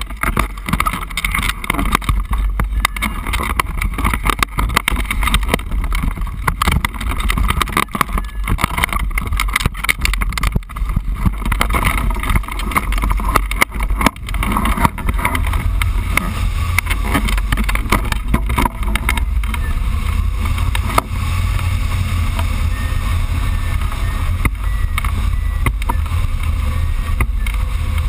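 Wind buffeting the microphone of a camera on a hang glider's control frame: a loud, steady low rumble. In the first half it is broken by many crackles and knocks while the glider is on the ground and launching; from about halfway it settles into a steadier rush of air in flight.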